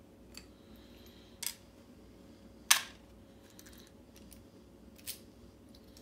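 A screwdriver and small metal lock parts being handled while a lock cylinder is taken apart: four sharp clicks, the loudest about three seconds in.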